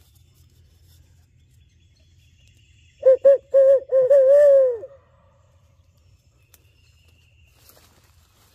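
Owl hooting in the barred owl's 'who cooks for you' pattern, loud and close: a quick run of short hoots, then a longer drawn-out note that rises and falls, about two seconds in all, a few seconds in.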